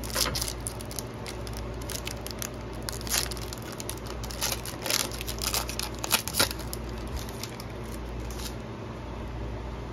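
Foil wrapper of a football trading-card pack being torn open by hand, with irregular crinkles and rips, over a steady low hum.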